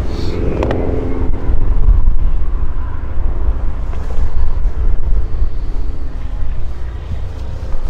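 Steady low engine rumble, with a faint droning tone in about the first second.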